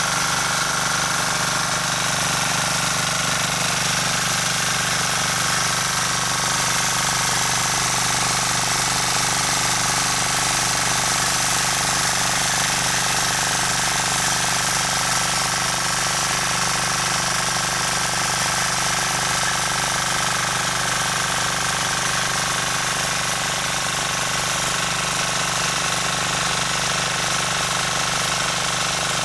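Rotakt walk-behind rotary tiller running steadily under load as its tines work through garden soil.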